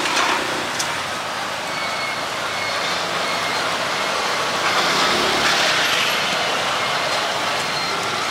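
Steady street-market din dominated by motor traffic, swelling louder a little past the middle.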